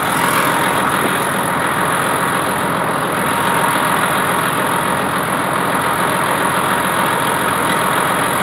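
IH 956XL tractor's six-cylinder diesel running steadily under load as it pulls a Kverneland Qualidisc Farmer 3000 disc harrow. The discs and packer roller churn through dry soil and sunflower stubble, giving a dense, continuous rushing and rattling.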